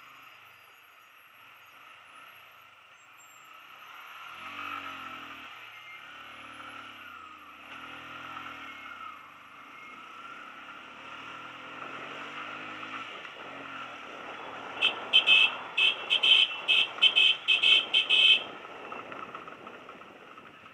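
Motorcycle riding slowly with its engine running softly, then a quick string of about nine short horn beeps over roughly three seconds near the end.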